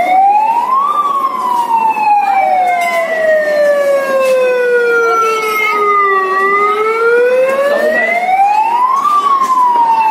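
Wail siren of a children's play fire truck: one slow tone that rises to a peak about a second in, falls for about five seconds, rises again, and starts to fall near the end.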